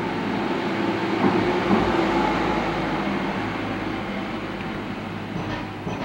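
A motor vehicle passing on the street below: engine and rolling noise swell to a peak about two seconds in, with a couple of light knocks, then slowly fade away.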